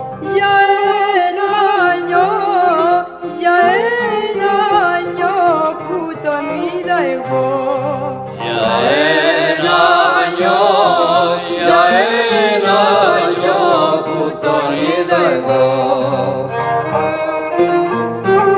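Greek folk-style music, with a bowed string instrument playing a wavering melody. The sound grows fuller and brighter about eight seconds in.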